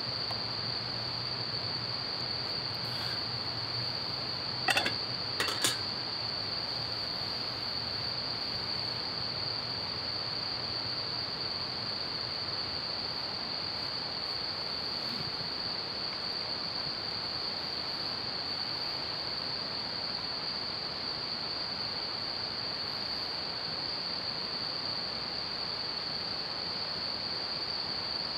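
Steady, high-pitched chorus of autumn night insects, crickets, over a soft background hiss. About five seconds in come a few sharp clinks, a spoon against a metal bowl.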